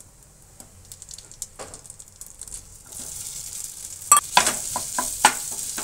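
Hot oil and chilli-turmeric spice paste sizzling in a nonstick frying pan as mashed boiled potatoes go in. The sizzle is faint at first and builds about halfway through, with several sharp knocks in the second half.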